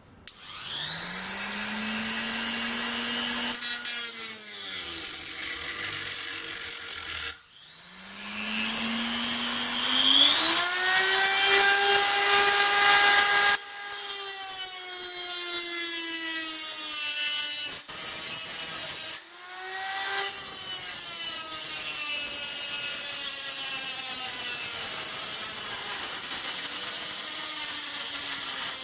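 Electric die grinder with a small cut-off disc cutting thin stainless steel tubing. It winds up to a high whine, the pitch sags as the disc bites into the metal, and the tool stops and restarts about three times.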